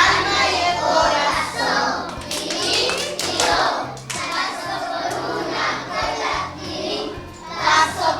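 Children singing a song over backing music, with a few hand claps.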